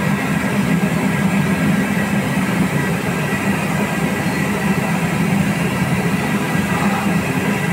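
Gulab jamun deep-frying in a wide pan of ghee: a steady sizzle over a low, even roar.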